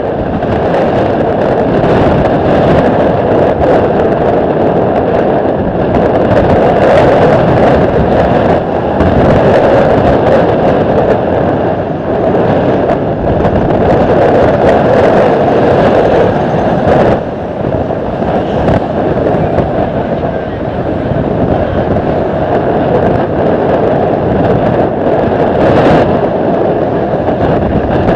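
Strong gusty wind buffeting the microphone: a loud, steady rush broken by frequent crackles, in a 40-knot crosswind.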